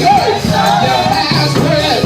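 Gospel praise music: singing over a band with bass and steady percussion such as tambourine.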